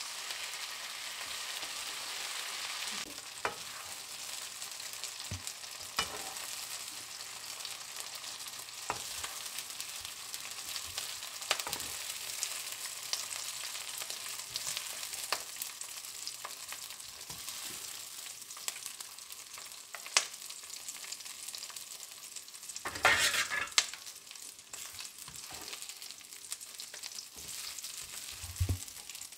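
Sliced onions sizzling in oil in a frying pan, a steady crackling hiss. A spatula taps and scrapes against the pan now and then. The sizzle swells louder for about a second around 23 seconds in.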